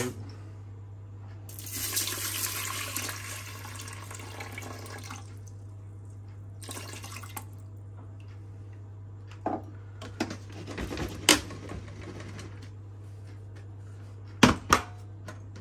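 Water poured into a rice cooker's inner pot over dry rice for about three and a half seconds, starting a second and a half in. A few sharp knocks and clicks of handling follow, the loudest two near the end, over a steady low hum.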